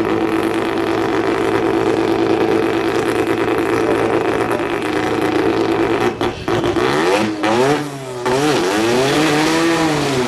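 Drag car's engine running at a steady fast idle, then after about six seconds revved up and down several times as the car starts its burnout.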